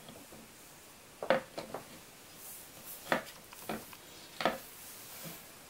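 Light clicks and knocks of a graphics card's plastic fan shroud and heatsink cooler being handled and set down onto the card, a handful of separate taps spread over a few seconds.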